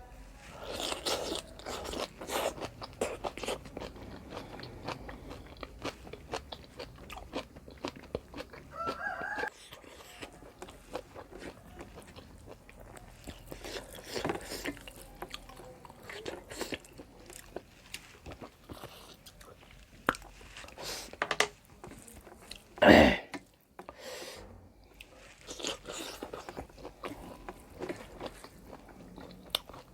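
Close-up mouth sounds of someone eating: chewing, biting and crunching through a meal of pork curry and rice with raw sides, with many small wet clicks. One brief, much louder sound comes about three quarters of the way through.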